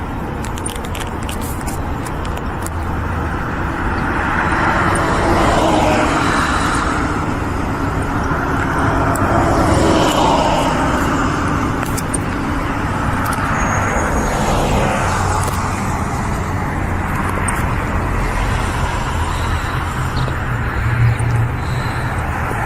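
Road traffic passing: a steady wash of tyre and engine noise, with cars going by in swells that rise and fall about five, ten and fifteen seconds in.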